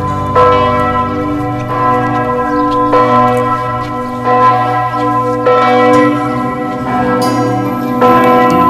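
Church bells ringing a slow tune, a new stroke about every second and a quarter, each note ringing on into the next.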